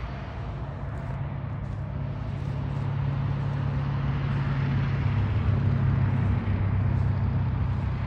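A motor vehicle passing by: a steady low engine hum with road noise over it, growing louder to a peak about six seconds in, then easing off.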